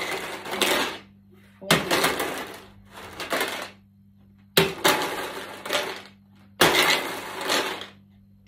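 A plastic bottle holding mini dice is flipped and lands on a wooden table three times. Each landing is a sharp knock followed by about a second of the dice rattling inside the bottle, with a quiet pause before the next flip.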